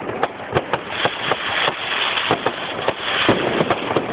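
Fireworks and firecrackers going off: a run of sharp bangs and pops, with a dense crackling hiss swelling in from about a second in.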